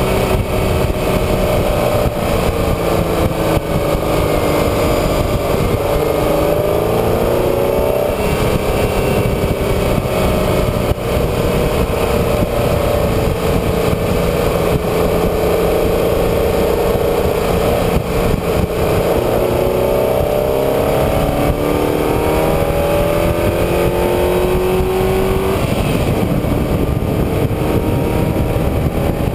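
A road vehicle's engine running under load, its pitch climbing and dropping back several times as the throttle and gears change, over steady road and wind noise.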